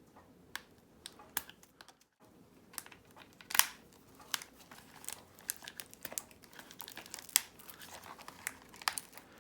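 Fur skin of a Squawkers McCaw toy parrot being pulled off its plastic shell: scattered sharp clicks of plastic clips and light rustling and tearing of the fabric, the loudest click about three and a half seconds in.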